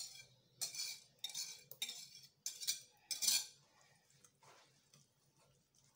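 Wire whisk scraping and knocking against a ceramic bowl to get thick semolina batter out: about six sharp strokes in the first three and a half seconds, then fainter scraping.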